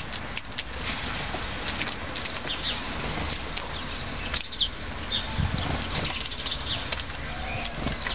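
Small songbirds chirping and calling again and again around a seed feeder, short high chirps, some falling in pitch, with flutters of wings as greenfinches land and take off. A low rumble runs underneath.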